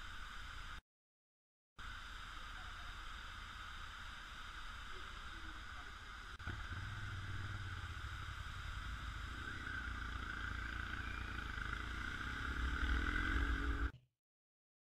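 Motorcycle on the move, with steady wind rush and a low engine drone. After a click about six seconds in it gets louder, and the engine rises in pitch near the end as it accelerates.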